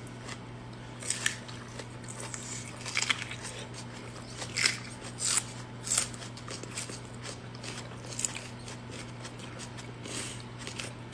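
Close-miked eating sounds: biting into and chewing a sauced dumpling, with irregular short mouth noises a few times a second at most. A steady low hum runs underneath.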